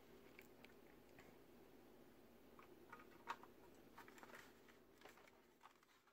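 Near silence with faint, scattered clicks and taps from the plastic case of a Ryobi One+ P117 battery charger as it is handled and its two halves are fitted together; the loudest tap comes about halfway through.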